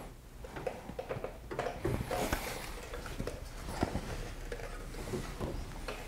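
Light clicks, taps and rattles of an exterior door handle being handled and fitted into a 2000 Chevy Silverado door, with irregular small knocks of metal and plastic parts.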